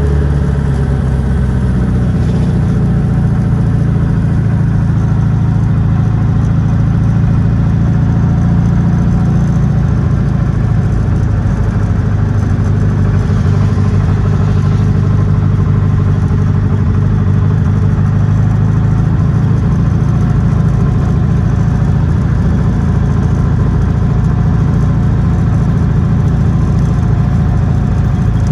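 1972 VW Super Beetle's air-cooled flat-four engine running while the car is driven. Its note shifts about a second in, then holds steady.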